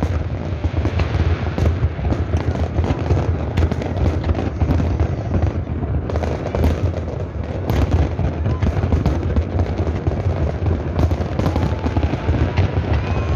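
Large aerial fireworks display: a continuous barrage of shell bursts, booms and crackling with no pauses, and a few whistling glides near the end.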